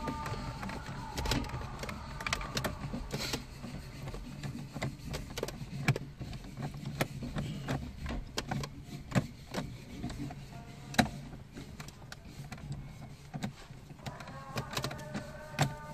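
Hands working plastic dashboard trim inside an empty radio slot of a Fiat: irregular clicks and knocks of plastic over a steady low hum.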